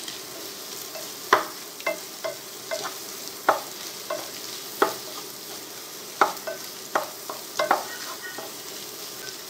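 A spatula stirring and knocking against a nonstick pot as scrambled egg and onion fry in oil on high heat. A steady sizzle runs under sharp, irregular knocks of the spatula on the pot, about one a second.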